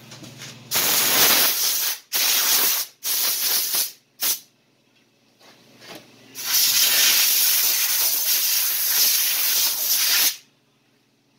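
Compressed-air blow gun hissing in sharp on-off blasts: four short blasts in quick succession, then one long blast of about four seconds.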